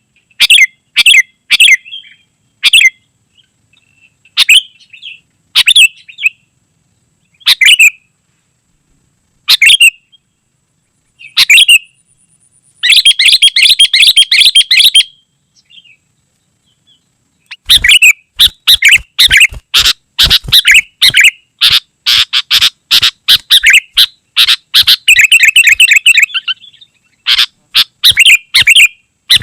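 Sooty-headed bulbul calling loudly in short, sharp chirping phrases, a second or two apart at first, then in fast, dense runs of calls for a couple of seconds near the middle and again through much of the second half.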